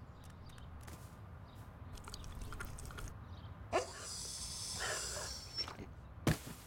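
An old dog's long, breathy yawn of about two seconds, over a low steady rumble with a few faint ticks before it. A single sharp knock comes near the end.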